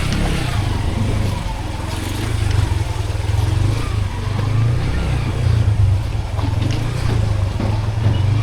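Steady low rumble of a motor vehicle running, with street traffic around.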